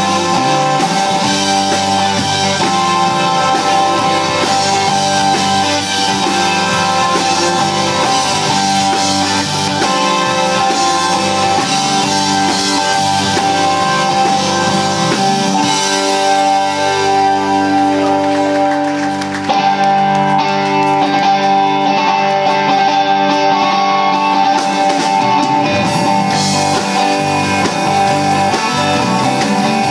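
Live rock band playing, with electric guitar, electric bass and a drum kit. Near the middle the level dips briefly, and the highest sounds fall away for a few seconds after it.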